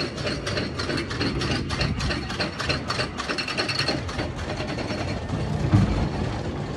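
Roller coaster train's anti-rollback ratchet clacking quickly and evenly as the chain lift hauls the train up the lift hill, over the low rumble of the lift chain and train.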